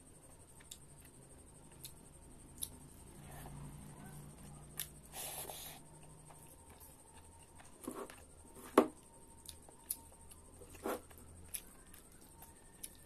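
Close-miked sounds of eating rice by hand: scattered soft clicks and smacks from chewing and from fingers mixing rice on a plate. There is a short hiss about five seconds in and a sharper smack about two-thirds of the way through, over a faint steady high whine.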